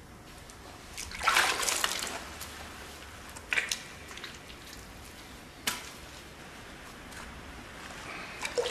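Wet, splashing handling sounds: a longer wet rush about a second in, then single sharp wet smacks about two and four and a half seconds later, and a few more near the end.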